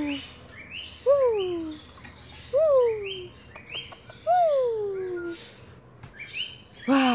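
A pet parrot calling about four times, once every second and a half or so: each call a short rising chirp followed by a clear whistle that rises and then falls.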